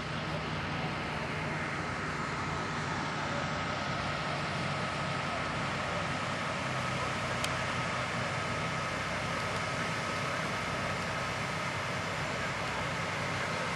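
Steady road and engine noise of a vehicle driving, heard from inside it, with a thin steady whine and one sharp click about halfway through.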